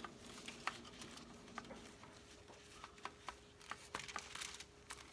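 Faint scattered clicks and light scrapes as garlic-parsley butter is spread onto slices of French bread on a foil-lined baking tray, a little busier about four seconds in, over a faint steady hum.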